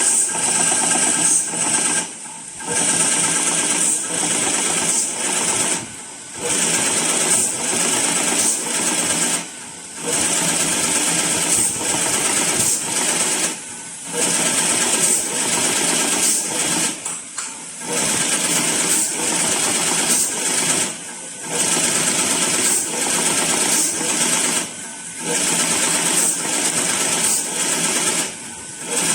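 2-axis CNC plastic broom tufting machine running at high speed, its tufting head stapling filament tufts into the broom block in a rapid continuous clatter. The run breaks off in short pauses about every three to four seconds.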